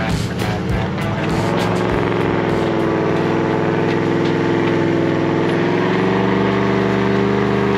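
Toyota LandCruiser 70-series engine working hard as it tows a loaded camper trailer through soft sand, a loud steady drone that rises slightly in pitch partway through as the wheels spin and the rig is close to bogging down.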